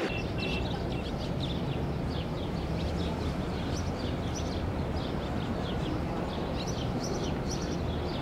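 Many small birds chirping busily in short repeated calls, over a steady low hum.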